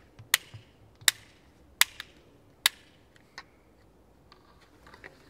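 SRAM G-series gearshift being clicked through its gear steps down into first gear: four sharp clicks about three quarters of a second apart, then a fainter one.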